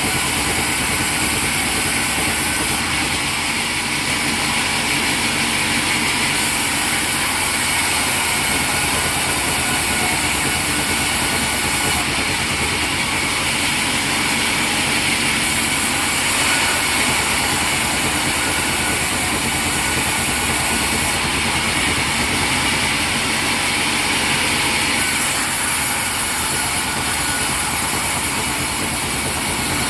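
Sawmill machinery running steadily: a loud, unbroken mechanical noise with a constant whine.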